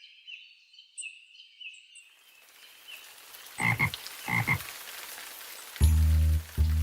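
Frogs croaking: a quick chirping trill, then two loud croaks about two thirds of a second apart over a faint hiss. Music with a steady bass comes in near the end.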